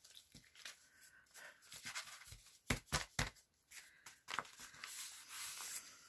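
Paper rustling and crinkling as a small booklet of folded paper envelopes is handled, flexed and smoothed flat, with a few short sharp clicks of paper about halfway through.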